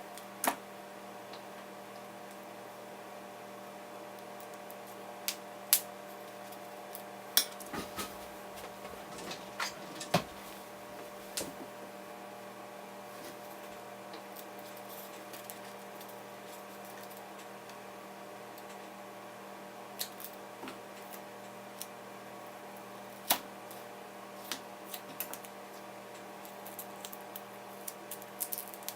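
Scattered light clicks and taps of hands fitting a replacement battery with double-sided foam tape into an opened 2015 MacBook Pro 13" Retina, over a steady low hum. The taps come in small clusters, with a sharper one past the middle and more near the end.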